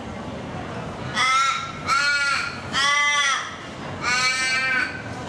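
Australian raven calling: a series of four drawn-out caws, starting about a second in, each slightly arched in pitch, the last one the longest.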